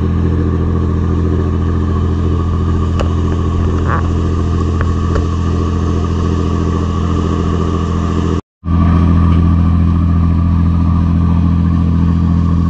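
A riverboat's engine running steadily under way, a deep even drone. It drops out for a moment about eight and a half seconds in, then carries on.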